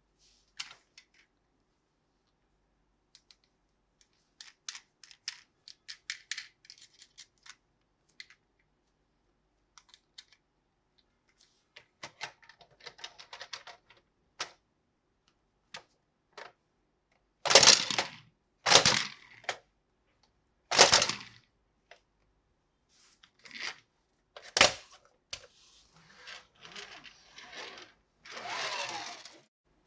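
Toy packaging and plastic toy parts being handled: scattered light clicks and taps, a few louder knocks about halfway through, and longer rustling near the end.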